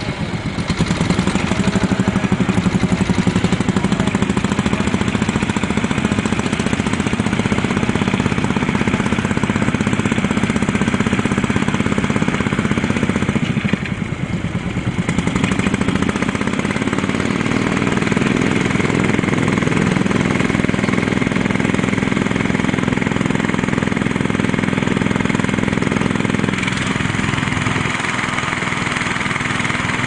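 Small engines of vintage two-wheeled walking tractors running steadily with a fast, even chugging beat as they pull ploughs through the soil. The sound dips briefly about halfway.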